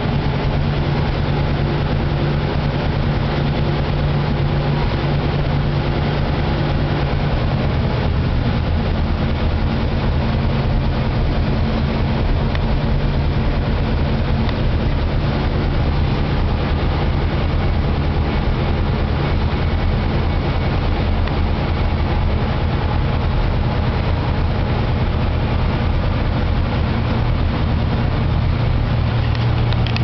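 1940 Lincoln flathead V12 idling steadily as it warms up from a cold start, its low, even note through the dual exhaust shifting slightly about a quarter of the way in.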